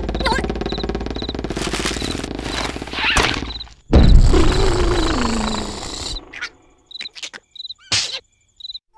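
Cartoon sound effects: a dense noisy stretch with a short high chirp about twice a second, then a loud hit just before the middle followed by a tone sliding down over a couple of seconds, then a few short chirps and clicks.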